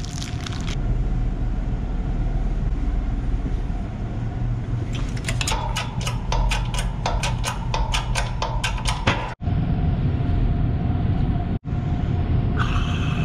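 A steady low mechanical rumble, with a run of quick clicks at about five a second for some four seconds in the middle while a new bearing is pressed into the milling machine's upper pulley housing.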